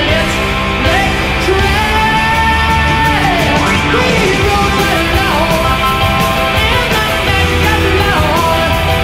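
Background rock music: a singer's voice over the band.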